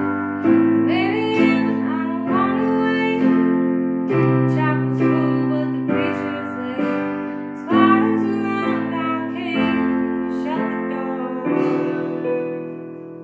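Digital piano played in held chords that change about every second, with a woman singing a melody over them. The final chord rings on and fades away near the end.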